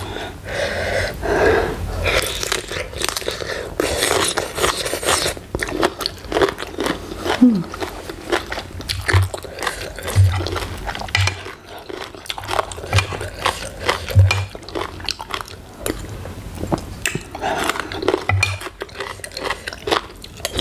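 Close-up chewing and crunching of spicy green papaya salad (som tam) with noodles: many short crunches and wet mouth sounds, and a sip of the sauce from a spoon near the end.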